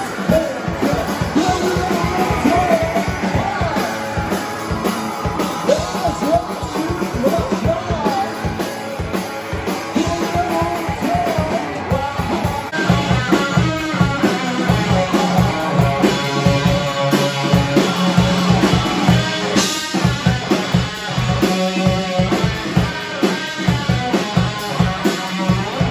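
Rock music with drums, guitar and singing; the drumming is fast and dense, and about halfway through the music turns fuller and steadier.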